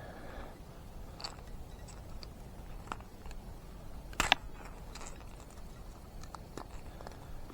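Fishing tackle being handled: scattered small clicks and rattles, with one sharper click about four seconds in.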